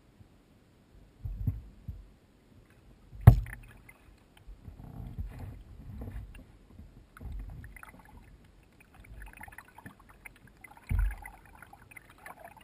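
Kayak paddle strokes picked up by a camera mounted on the kayak's deck: dull low thumps and water splashing as the paddle dips, with one sharp knock about three seconds in.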